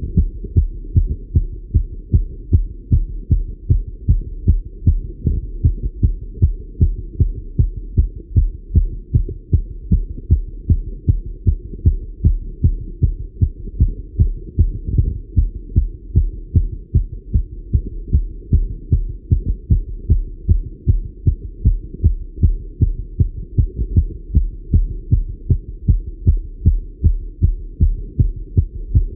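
A man's fast heartbeat heard through a Littmann stethoscope, raised by exercise on a bike: a quick, steady run of lub-dub beats, dull and muffled.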